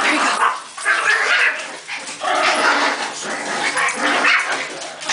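Small dogs barking and yipping excitedly in several long bursts with short breaks between them, worked up by a mouse they are chasing.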